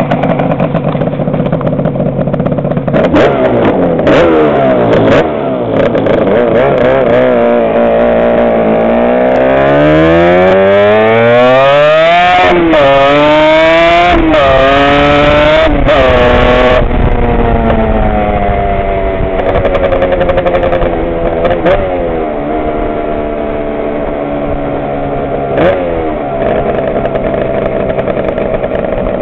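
Yamaha RD350 parallel-twin two-stroke with Spec II expansion-chamber pipes, ridden on the street and heard from inside a backpack. The engine note climbs through the gears, rising and dropping back at each shift, then settles to a steadier cruise with a couple of short blips of throttle.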